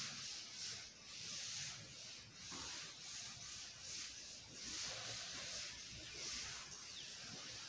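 Chalkboard duster wiping chalk off a blackboard: faint, repeated rubbing strokes, about one a second.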